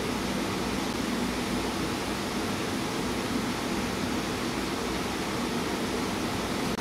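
Steady, even rushing noise with no distinct knocks, clicks or tool sounds.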